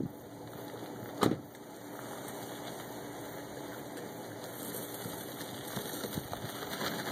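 A 2004 Ford F-150 pickup's door slammed shut about a second in: a single loud bang, followed by a steady background hiss.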